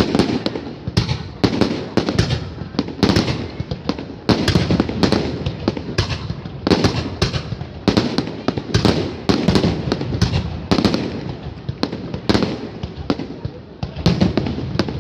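Aerial fireworks display: a dense, continuous string of sharp bangs, several a second, with crackling between them as shells burst overhead.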